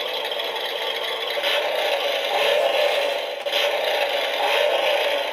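Tyco Mattel Super Sound slot-car layout switched on and running: a loud, steady whirring, rattling noise that starts abruptly.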